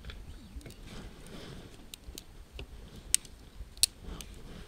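Sharp metallic clicks and knocks from a cast-iron wood stove's door handles and latches as the two doors are worked and set slightly ajar, with two louder clacks near the end.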